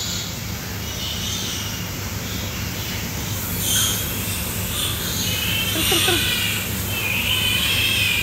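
Piglets squealing and squeaking in high-pitched calls while nursing at a sow, starting a few seconds in and growing busier toward the end, over a steady low hum.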